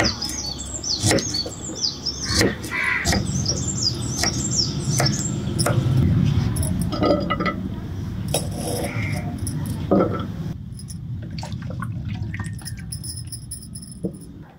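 A knife chopping carrot on a wooden chopping board: irregular sharp knocks of the blade on the board. Birds chirp in the first few seconds.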